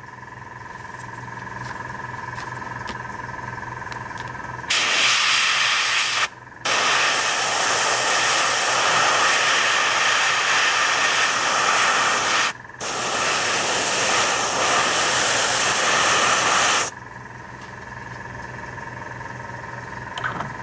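A 0.2 mm dual-action gravity-feed airbrush spraying paint in three long hissing bursts with short breaks between them, as the last layer is sprayed on. A quieter steady hum fills the stretches before and after the spraying.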